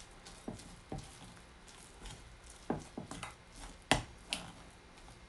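A few light, irregular taps and knocks of kitchen handling as sunflower seeds are put into and worked through mugwort glutinous-rice dough in a bowl, the loudest about three and four seconds in.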